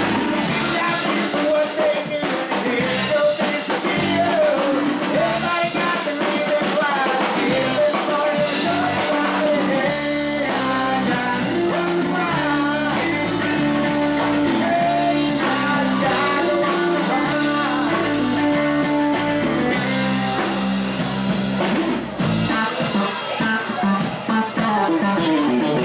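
A live rock band playing: electric guitars, bass guitar and a drum kit, with a man singing lead vocals.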